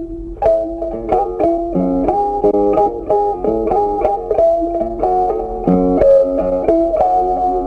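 Background music: a melody on a plucked string instrument, with notes changing every fraction of a second.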